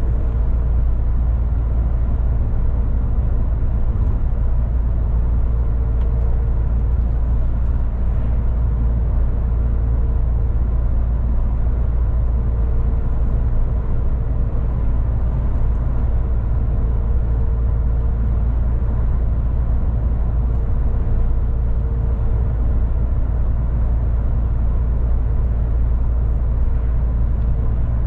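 MAN TGX 18.460 truck heard from inside the cab while driving: a steady, heavy low rumble from its inline-six diesel engine and the road, with a faint hum that swells and fades.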